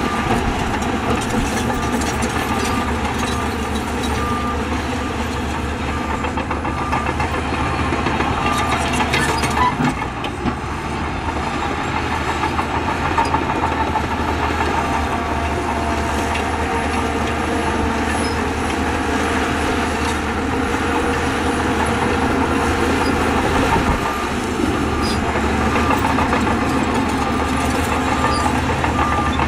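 Heavy diesel earthmoving machinery, bulldozers and dump trucks, running steadily, with a few short knocks about ten seconds in.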